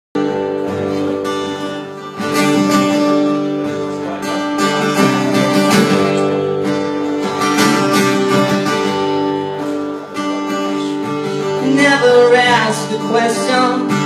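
Acoustic guitar strumming a song's chord intro, played live and amplified; a man's singing voice comes in near the end.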